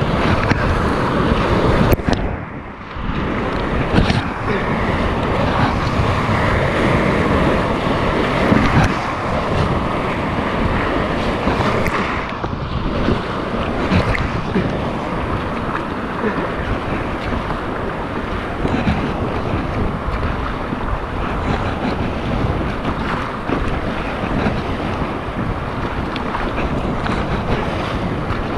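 Whitewater rapids rushing and splashing around a kayak as it is paddled downstream, with wind buffeting the microphone. A few sharp hits stand out, and the noise briefly drops and goes muffled a couple of seconds in.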